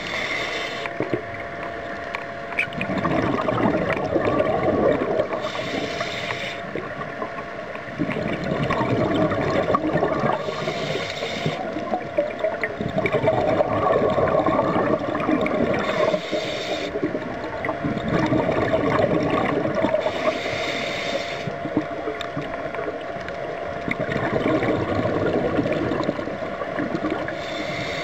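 Scuba diver breathing through a regulator underwater: a short hiss of inhaled air about every five seconds, each followed by a longer burble of exhaled bubbles.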